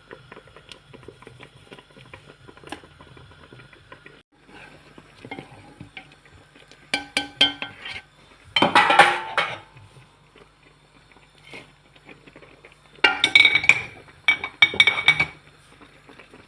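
Metal pots and cooking utensils clattering and clinking in several bursts with a brief metallic ring, the loudest about nine seconds in and more around thirteen to fifteen seconds.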